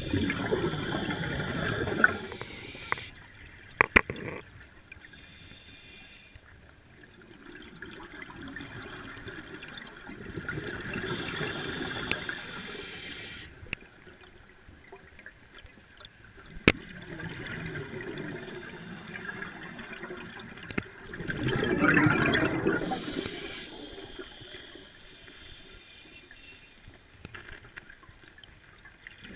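Underwater scuba regulator breathing: exhaled air bubbling out in surges, the loudest at the start and again about 22 seconds in, with hissing inhalations between them. A few sharp clicks stand out.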